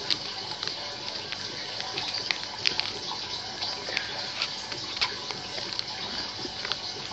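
Paper rustling and crinkling as it is folded and tucked by hand, with frequent short sharp crackles over a steady hiss.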